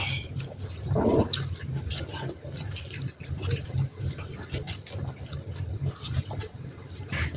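Close-miked eating sounds: wet slurping of spicy instant noodles and chewing with small crunchy bites of fried chicken nuggets, many short clicks and smacks, with a louder wet slurp about a second in. A low steady hum runs underneath.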